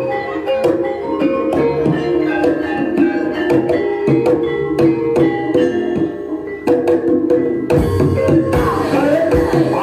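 Live Javanese gamelan playing for an ebeg dance: keyed instruments ring out a quick, even run of struck notes over hand-drum patterns. Deeper drum strokes join about eight seconds in.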